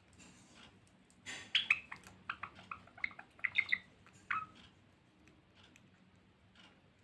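Finches chirping: a quick run of a dozen or so short, high chirps about a second in, lasting some three seconds, with fainter single chirps before and after.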